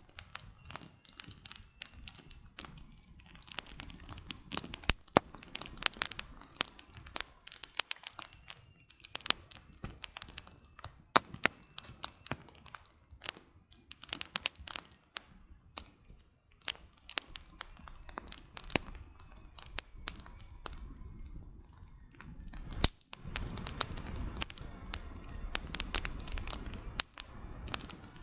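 Campfire with firewood burning, crackling and popping in quick, irregular sharp snaps. About three quarters of the way through, a low steady rumble rises beneath the crackle.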